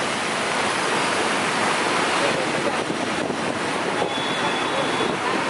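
Steady rushing noise of a vehicle travelling through a flooded street, with the wet road and water under the wheels and air rushing past.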